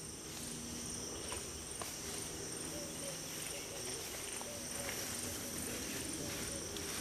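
Steady insect chorus, a high shrill trilling that holds without break, with a few faint clicks.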